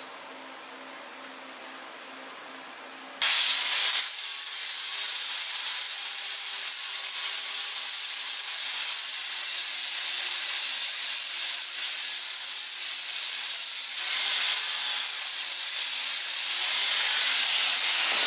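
An angle grinder starts about three seconds in and runs steadily, grinding the welded steel surface of a railroad-track anvil. Its high whine dips and rises as the disc is pressed onto the metal and eased off.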